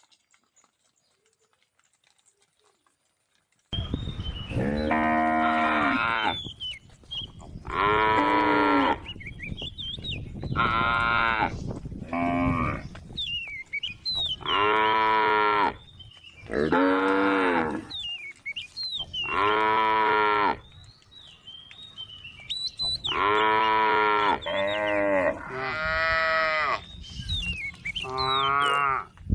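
A cow mooing over and over, about ten moos of a second or so each, starting about four seconds in. Faint high chirps come between the moos.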